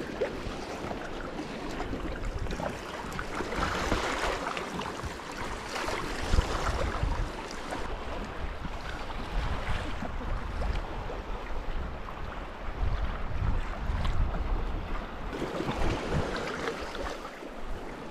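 Sea kayak being paddled through choppy water: paddle blades splashing in and out and water slapping against the hull in uneven surges. Wind gusting across the microphone adds a low rumble throughout.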